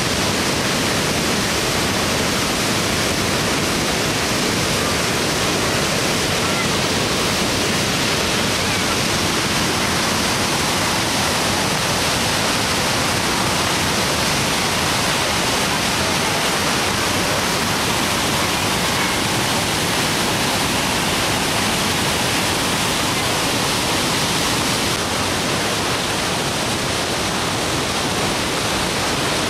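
Niagara Falls' water pouring over the brink and crashing below: a steady, unbroken rush of noise.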